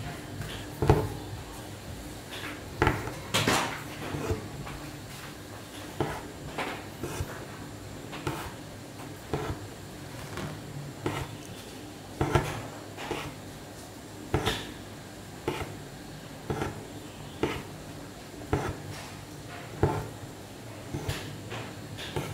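Hand embroidery stitching: a needle pierces the embroidery fabric and thread is drawn through, a tap at each stitch, about one a second.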